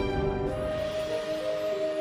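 Background music of long held notes.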